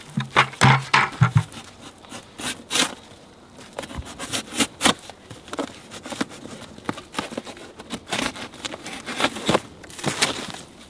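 A knife slitting the packing tape and cardboard of a tall shipping box, heard as irregular scrapes, clicks and rustles of cardboard.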